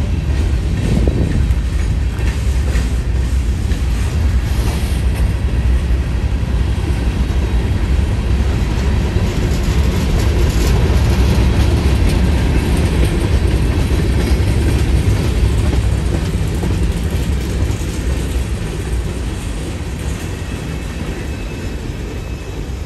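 Covered hopper cars of a freight train rolling past: a steady rumble of steel wheels on the rails with scattered clicks, growing quieter over the last several seconds.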